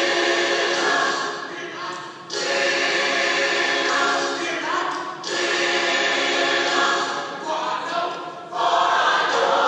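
A choir singing in long phrases, with brief breaks between phrases a little after two, five and eight seconds in.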